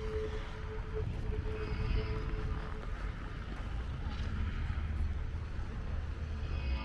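City street traffic: a steady low rumble of passing cars, with wind buffeting the microphone, and a steady tone over the first few seconds.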